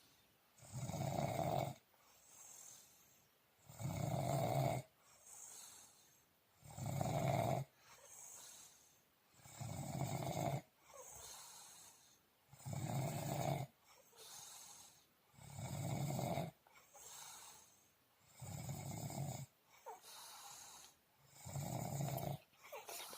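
Snoring in deep sleep, steady and rhythmic: a loud snore about a second long every three seconds, with a fainter breath between each.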